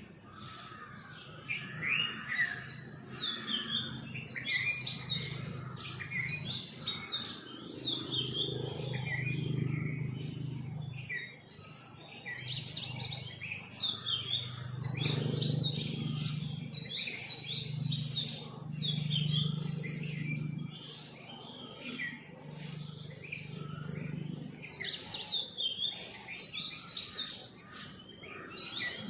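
Many small songbirds chirping and trilling at once in a busy morning chorus of short, quick notes, with a low hum swelling and fading underneath in the middle stretch.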